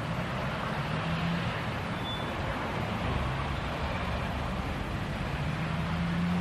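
Steady city traffic noise: an even rumble with a low hum that swells about a second in and again near the end.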